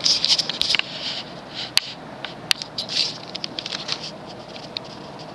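Fasco State Fair ceiling fan running on high speed, a steady airy noise, with irregular scratchy crackling and clicking over it, heaviest in the first second and again about three seconds in.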